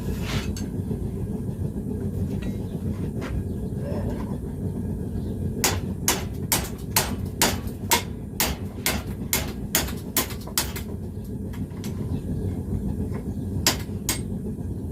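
Hammer blows on a hot iron chain link on the anvil, a run of about a dozen strikes at roughly two a second through the middle, then two more near the end. Under them is the steady low noise of a two-burner gas forge.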